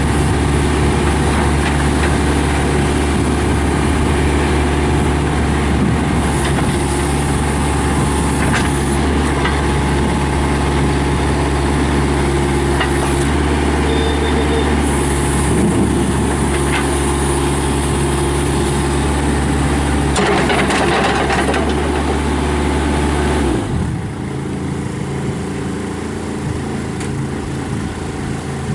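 Kubota diesel engine of a Bobcat B300 backhoe loader running steadily at working speed, with a burst of extra mechanical noise a few seconds before the end. Near the end it drops to a lower, quieter speed.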